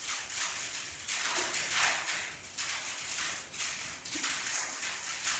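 A pen writing on paper: a run of short, uneven scratching strokes, some louder than others, as algebra is written out.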